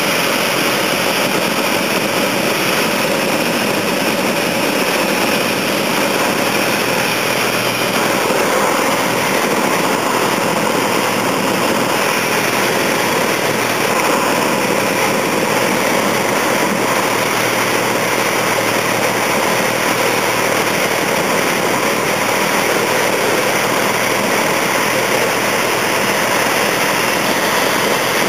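A light aircraft's engine running steadily on final approach to landing, heard loud from inside the cabin.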